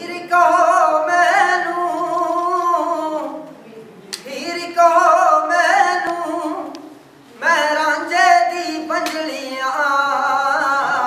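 A man singing unaccompanied into a microphone: three long phrases with no clear words, the notes wavering and ornamented, opening a Punjabi song.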